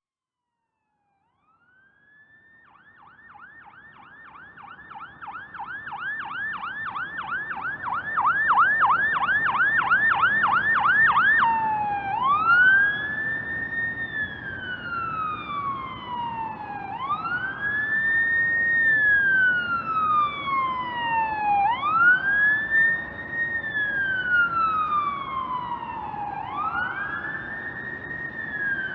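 Ambulance siren growing louder over the first several seconds, first in a fast yelp of about three rises a second, then switching about eleven seconds in to a slow wail, each cycle a quick rise and a long fall, repeating about every five seconds. A low rumble of road noise lies underneath.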